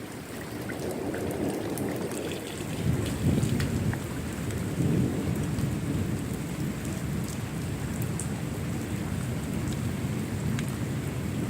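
Rain falling with rolling thunder. The rumble swells about three seconds in and again near five seconds, over a steady hiss of rain with scattered drop ticks.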